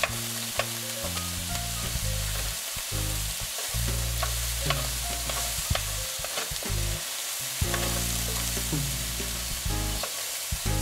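Crumbled Italian sausage meat sizzling as it browns in a frying pan, turned with a wooden spoon that scrapes and clicks against the pan now and then. Low held tones shift in pitch underneath.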